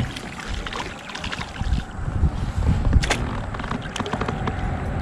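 Handling noise from fighting a hooked bass out of a plastic kayak: scattered knocks and clicks of gear against the hull, one sharp knock about three seconds in, over a low rumble of wind on the microphone.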